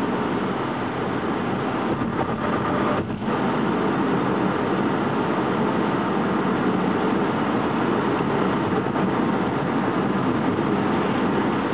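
Car driving at road speed, heard from inside the cabin: a steady mix of engine and tyre noise, with a brief dip about three seconds in.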